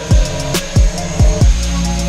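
Background music with a beat: several deep, booming kick-drum hits over held tones and crisp hi-hat ticks.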